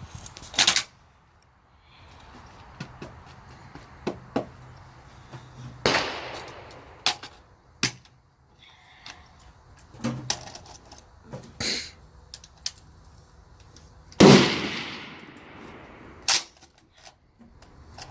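Rifle shots at a shooting range: a sharp report about a second in, several more from about 6 to 12 s, and the loudest about 14 s in, ringing on for over a second, with one more near the end.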